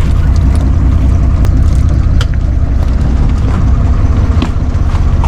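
Small fishing boat's engine running, a steady low drone, with a few sharp clicks from handling on deck.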